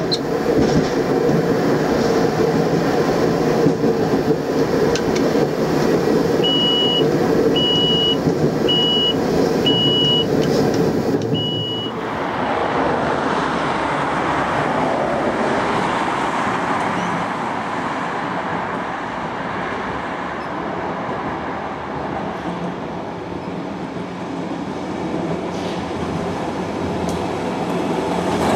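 Tram running along street track, heard from on board as a steady rumble, with five short high beeps about halfway through this part. About twelve seconds in the sound changes to roadside traffic noise. A W-class tram approaches and grows louder near the end.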